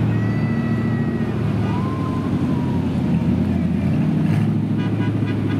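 Cars driving slowly past, their engines running with a steady low rumble.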